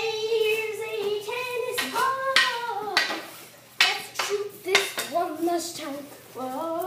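Hockey stick clacking on a concrete garage floor during stickhandling, several sharp hits in the middle, over a person's wordless singing voice.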